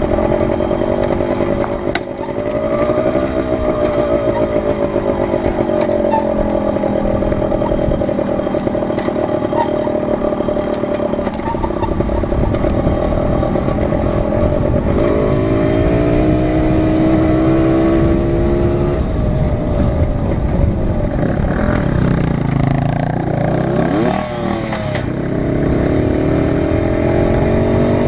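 Dirt bike engine running under way along a trail, its pitch rising and falling as the rider works the throttle and gears, heard from the rider's helmet with a steady rumble of wind and trail noise.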